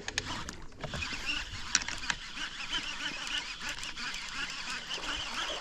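Many birds calling at once, a dense chatter of short overlapping calls, with a few sharp knocks in the first two seconds.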